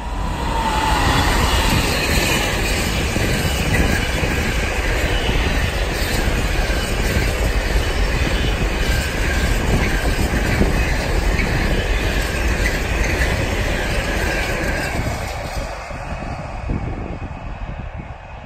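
Class 88 locomotive running past close by with a long intermodal container freight train: a brief falling whine as the locomotive goes by about a second in, then the wagons rumble and clatter past steadily with a high wheel squeal over it, fading away over the last few seconds.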